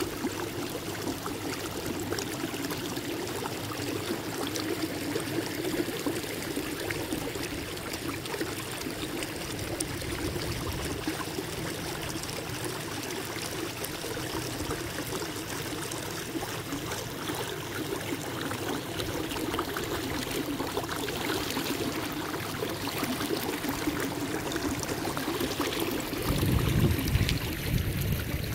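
Water trickling and lapping against a kayak's hull as it moves, a steady wash, with a louder low rumble near the end.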